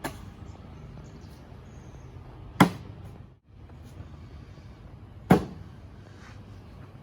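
Cornhole bags landing on the wooden board: two sharp, loud thuds, a little under three seconds in and again about five seconds in, after a fainter knock at the very start.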